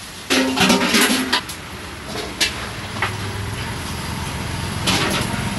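Busy street ambience with motor traffic running. A loud, short jumble of clattering and a voice-like sound comes about half a second in and lasts about a second, and a few sharp clicks follow later.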